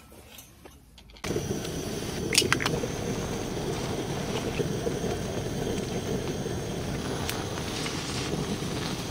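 A pan of rice simmering in ramen broth over a camp stove: a steady low rushing noise that starts suddenly about a second in, with a few sharp clinks of a metal spoon against the pan.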